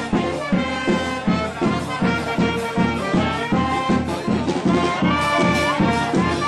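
Charanga (street brass band) playing a lively tune: trumpets and trombones over a steady drum beat.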